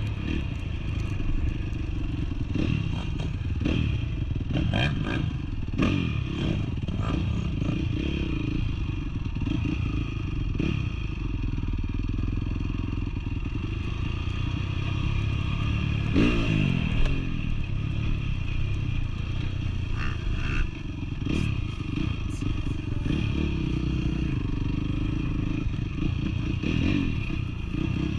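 Honda CRF dirt bike engine running on an off-road trail ride, its revs rising and falling, with scattered knocks and clatter.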